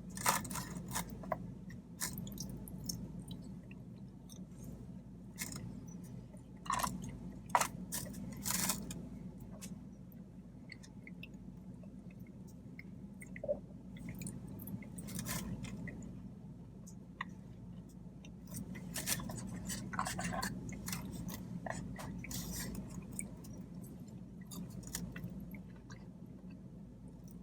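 A person chewing food, with irregular short clicks and snaps from the mouth and the food.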